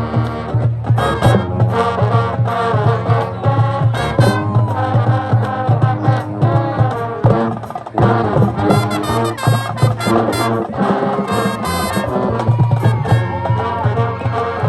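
High school marching band playing: brass section carrying the melody over a steady drumline beat.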